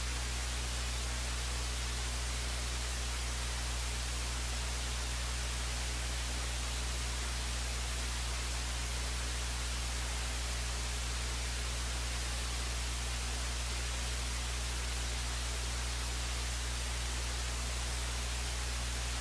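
Steady electronic hiss and static with a low, constant hum underneath, unchanging throughout: noise from the audio line with no game sound or commentary on it.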